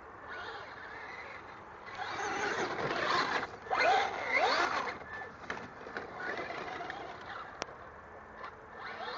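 Traxxas Slash RC truck running with a whine from its drivetrain that rises and falls in pitch as it is throttled, loudest a few seconds in, with a click later on. The owner is unsure whether this whine is normal.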